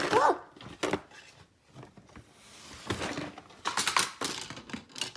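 Plastic toys clattering and knocking as they are handled, in clusters of clicks, with a short squeak near the start.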